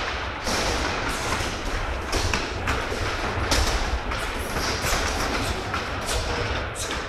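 Kicks and punches landing on padded kick shields, mixed with feet thudding and shuffling on a wooden gym floor: many irregular thuds and slaps ringing in a large hall, over a steady low rumble.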